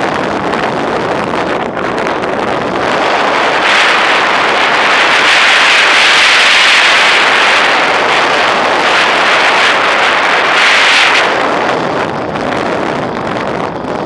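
Air rushing past the onboard camera of an RC Duo Discus sailplane in flight: a steady hiss with no motor tone, swelling louder and brighter from about four seconds in and easing off near the end.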